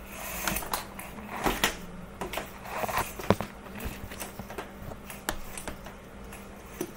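Hands fiddling with a laptop to turn down its screen brightness: irregular light clicks and taps on the keys and casing.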